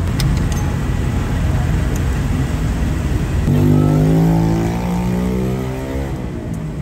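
Street traffic rumbling steadily, with a motor vehicle's engine passing close by from about halfway through, loudest a second later and then fading.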